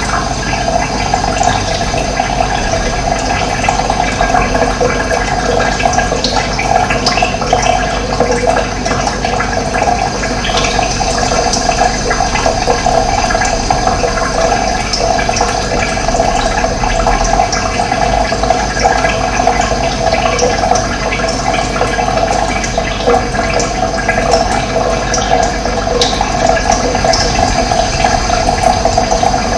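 Water running steadily, a continuous splashing rush like a stream or small outflow.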